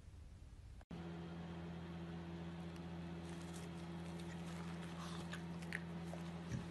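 Shih Tzu eating off a spoon, with faint smacking and chewing clicks over a steady low hum. The sound starts after a brief break about a second in.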